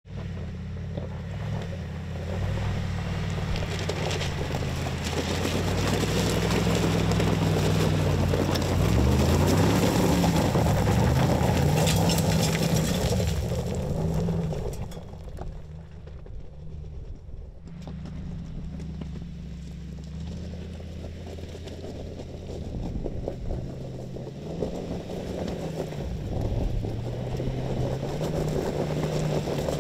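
2019 Mercedes-AMG G63's twin-turbo V8 engine pulling hard up a loose rocky slope, its pitch rising and falling with the throttle, over a heavy crunch and spray of gravel under the tyres. It drops away for a few seconds just past the halfway mark, then comes back and revs up again near the end.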